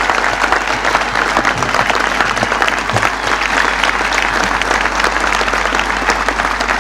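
Large crowd applauding steadily, easing off slightly near the end.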